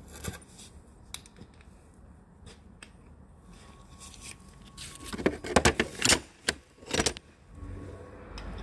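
Metal hand tools clicking and rattling during work on the sump bolts, with a burst of louder metallic clatter a little past halfway and another shortly after.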